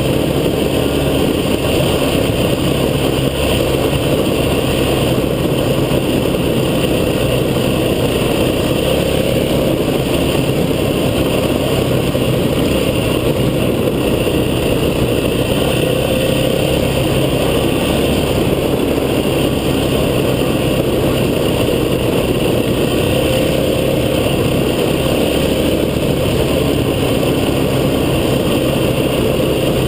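Engine of an off-road vehicle running at fairly steady revs while driving, over a constant rushing noise.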